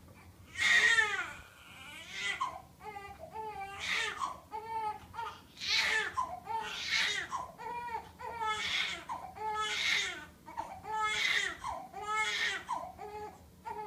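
Baby crying in a run of repeated wails, each a second or so long with short gasps between; the first wail is the loudest.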